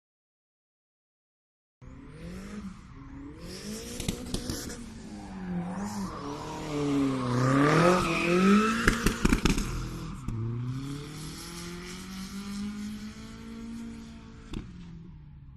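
After about two seconds of silence, a car engine revs up and down through a drift while the tyres squeal, loudest about halfway through, with a quick cluster of sharp cracks just after the peak. The engine then drops back to lower revs.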